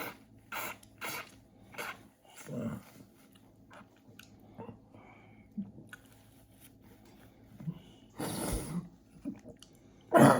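A person chewing a sticky Rice Krispie treat square with wet mouth clicks. There is a louder breathy burst about eight seconds in and a sharper, louder one near the end.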